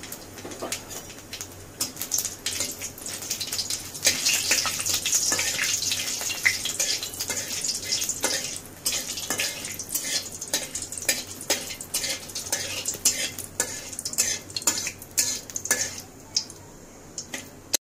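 A spatula scrapes and taps repeatedly against a metal karahi while stirring. Underneath is the sizzle of whole chillies and nigella seeds frying in hot mustard oil, which grows louder about four seconds in.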